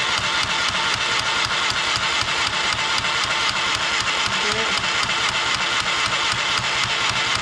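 Toy Barbie sewing machine's small electric motor running with the foot pedal held down, winding thread onto the bobbin. It makes a loud, steady, rapid plastic clatter.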